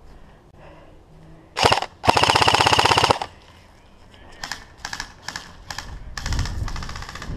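Airsoft electric rifle (AEG) firing in full-auto bursts with a fast, even rattle: a short burst, then a longer one of about a second, several short bursts and single shots, and another burst near the end.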